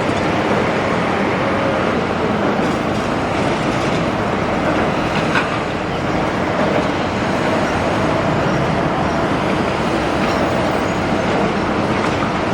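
Large Doosan excavator running steadily on a demolition job, with a short knock about five seconds in.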